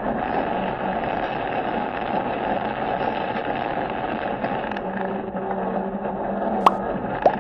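Steady road and engine noise heard inside the cabin of a moving vehicle, with two short sharp clicks near the end.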